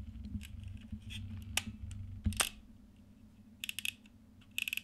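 Small metal parts of a Voigtlander Bessy K camera's shutter mechanism clicking and tapping as a part is worked into place. There are two sharp clicks about one and a half and two and a half seconds in, then two quick rattling runs of ticks near the end.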